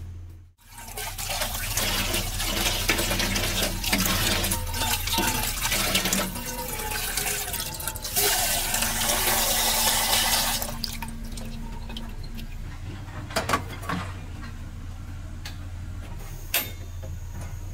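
Tap water running hard into a stainless steel pot held under the faucet, for about ten seconds, with a rising pitch as the pot fills. It then stops, leaving a quieter stretch with a sharp click near the end as a gas stove knob is turned.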